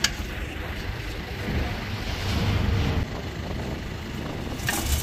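Steady low rumble of outdoor traffic noise with wind on the microphone, swelling slightly about two seconds in; a sharp click at the very start.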